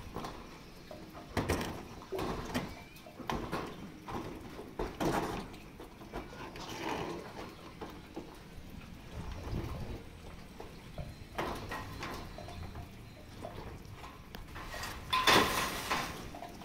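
Footsteps and knocks on corrugated steel roof sheets: irregular thumps and clanks about once a second, with a short metallic ring after some. A louder metal clang comes near the end.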